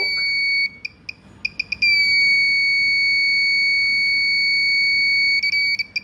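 Buzzer of a home-made Arduino flame alarm sounding one high, steady tone. It breaks into a few short stuttering beeps about a second in, holds unbroken for about three and a half seconds, then stutters again near the end. It sounds whenever the flame sensor detects the candle flame and cuts in and out as the detection flickers.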